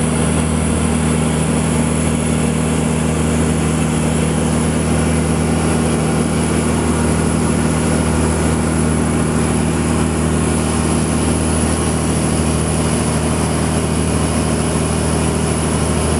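Fishing boat's engine running steadily: a constant low drone that holds unchanged in pitch and loudness throughout.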